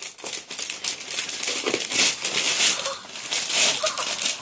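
Gift wrapping paper crinkling and tearing as a present is unwrapped, in a busy rustle that swells about two seconds in and again past three and a half seconds.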